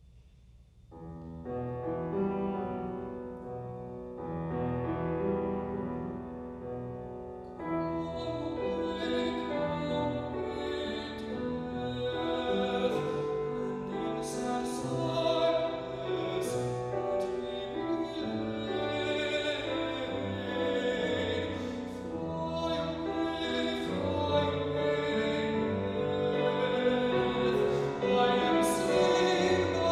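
Grand piano starts an art-song accompaniment about a second in, and a male classical singing voice joins it about seven and a half seconds in; voice and piano perform together from then on.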